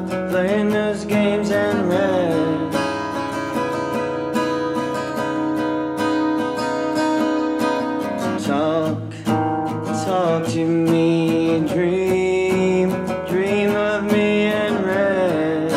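Music: a strummed acoustic guitar with a singing voice.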